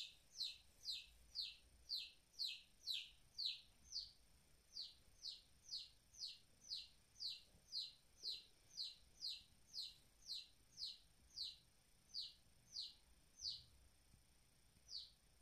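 Baby chicks peeping: a steady run of short chirps that each slide downward in pitch, about two a second, with a brief pause about four seconds in and fewer chirps near the end.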